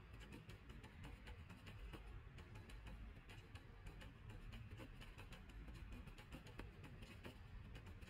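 Near silence: faint, irregular small clicks over a low rumble.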